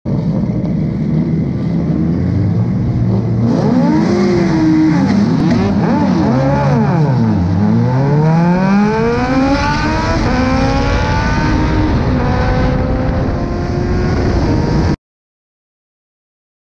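Race car's Suzuki Hayabusa motorcycle engine, heard from the cockpit. It idles, then is revved up and down several times with the gearbox in neutral at a standing start. Then it pulls hard through the gears, the revs climbing again and again. The sound cuts off abruptly about 15 seconds in.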